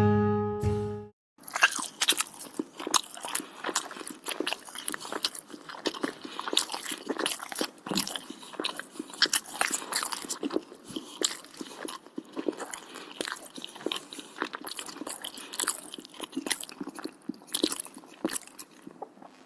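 Close-up chewing and eating mouth sounds: a dense, irregular run of small wet clicks and smacks. Before that, cello music cuts off about a second in.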